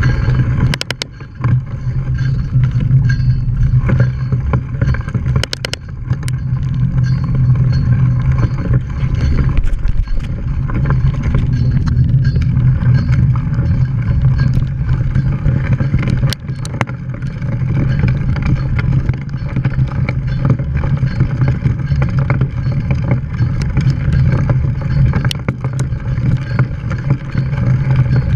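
Mountain bike ridden fast over a wet dirt trail, heard from a camera on the bike: a steady low rumble of tyres and rushing air, with sharp knocks and rattles now and then from bumps.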